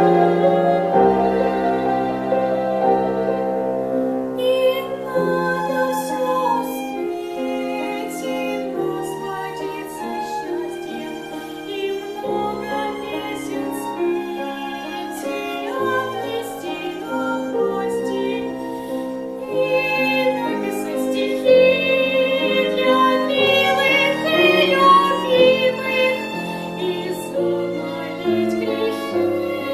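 Music: a slow song with bowed strings holding long notes.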